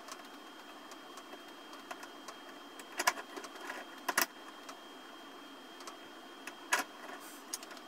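Small metal clicks and rattles of lock-picking tools working a brass padlock clamped in a vise, with a few sharper clicks about three, four and seven seconds in, over a steady faint hum.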